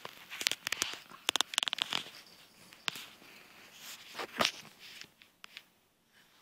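Close handling and rustling noise: a quick run of sharp crackles and clicks over the first two seconds, a single click about three seconds in, and a louder rustle about four and a half seconds in.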